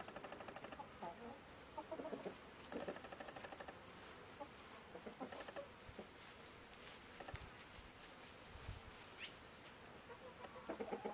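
Domestic chickens clucking in short, scattered calls over a steady high hiss; the clucking grows louder and busier near the end.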